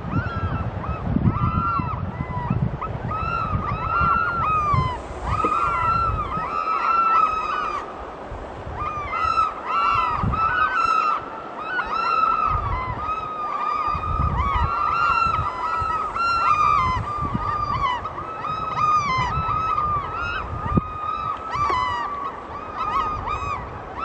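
A flock of Eurasian oystercatchers calling in flight: many overlapping piping calls, one after another.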